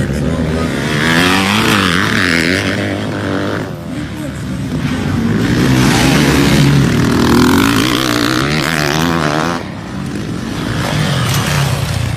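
Motocross dirt bike engines revving hard, the pitch rising and falling again and again, with brief dips about four and ten seconds in.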